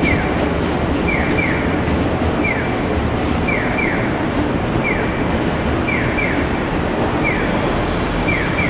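JR Central local electric train rolling away on the tracks, a steady rumble mixed with city background. Short falling chirps repeat about once a second through it, often two at a time.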